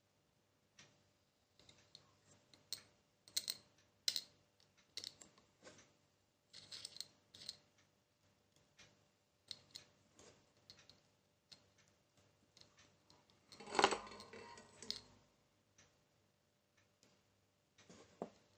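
Irregular small clicks and taps of metal tweezers and small parts handled on the aluminium plate of an LED bulb's MC PCB, with a louder rustling noise about a second long around three-quarters of the way through.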